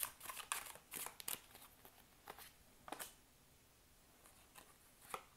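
Tarot cards being shuffled and handled by hand: a quick run of card flicks through the first second or so, then a few separate card clicks as cards are handled and laid down.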